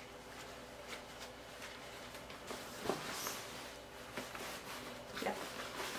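Handling sounds of a Fisher-Price Sit-Me-Up floor seat being put together: its fabric cover rustling and its plastic frame knocking softly, with a light knock about three seconds in.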